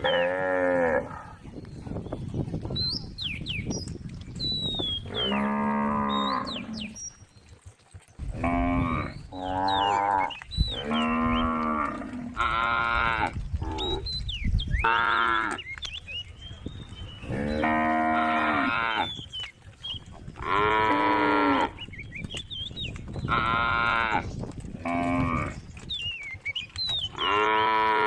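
Cows mooing again and again, about a dozen drawn-out moos a second or so long, some coming back to back, as the cows call to the herd.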